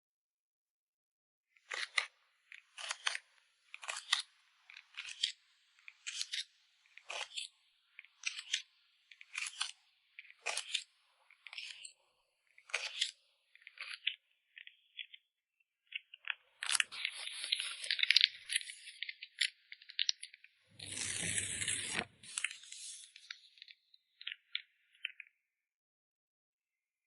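Photocard packing materials being handled: short crisp rustles or snips about once a second, then two longer stretches of crinkling past the middle, the second with a low rub underneath.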